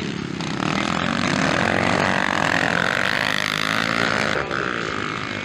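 Motocross dirt bike engine revving hard through a corner, getting louder about half a second in, climbing in pitch and easing off near the end.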